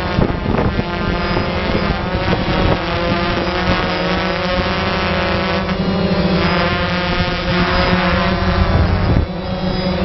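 Multirotor camera drone's motors and propellers whirring close to its own microphone, their pitch wavering up and down as the drone adjusts its position, with some wind noise on the microphone.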